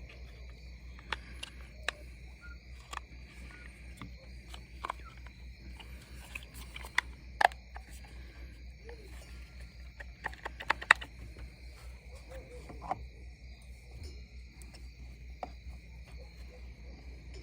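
Crickets chirping steadily in the background, with scattered sharp clicks and knocks, a tight cluster of them about ten to eleven seconds in.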